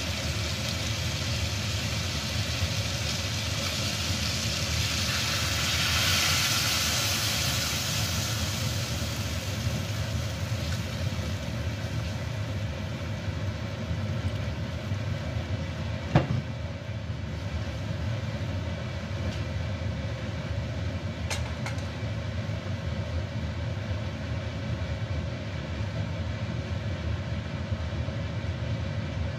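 Pork spareribs frying and then simmering in a wok on a gas hob over a steady low rumble, with a louder sizzling hiss swelling about six to eight seconds in. A single sharp click about sixteen seconds in.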